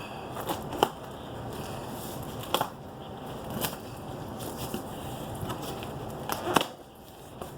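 Ration-pack packaging being handled and dug into by hand: scattered crinkles, clicks and snaps over a steady low background, the loudest near the end.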